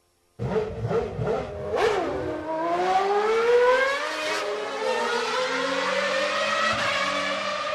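Racing car engine accelerating, starting suddenly after a moment of silence: its pitch climbs, drops briefly about four seconds in as at a gear change, then climbs again.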